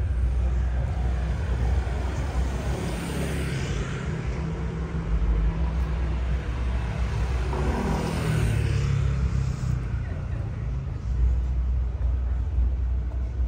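Road traffic: a car passing close by, swelling and fading, loudest about eight seconds in, over a steady low rumble.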